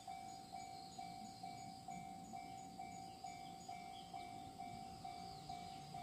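Japanese railroad level-crossing warning bell ringing its steady two-tone 'kan-kan', about two strikes a second.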